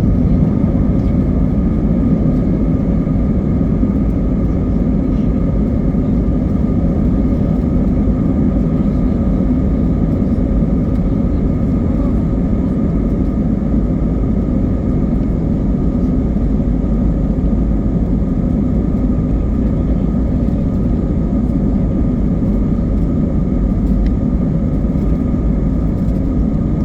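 Airliner cabin noise: a steady drone of engine and air rush heard from inside the cabin, strongest in the low range, with faint steady tones running through it.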